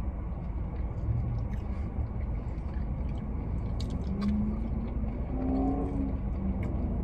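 Steady low rumble of a car's cabin with its engine running, with scattered faint clicks of chewing and handling food, and a faint hum in the second half.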